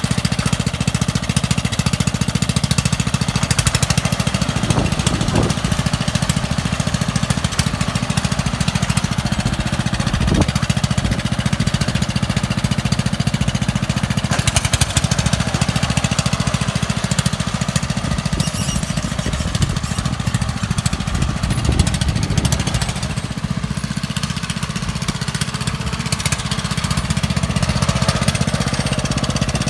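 Ride-on lawn mower engine running through a short home-made straight-pipe exhaust: a loud, steady, rapid beat of exhaust pulses that eases slightly about two-thirds of the way through.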